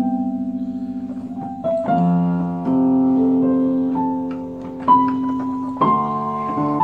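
Electronic keyboard played in slow, held chords with a soft electric-piano tone, a new chord every second or so; the first chord wavers in a steady tremolo.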